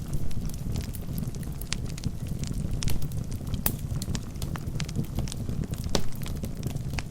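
Wood fire burning in a fireplace: a steady low rumble of flames with irregular sharp crackles and pops from the burning logs, a few louder pops scattered through.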